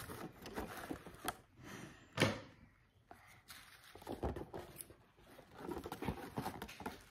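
A cardboard toy box with a plastic window being handled to open it: scattered rustles and light knocks, the loudest a sharp knock about two seconds in.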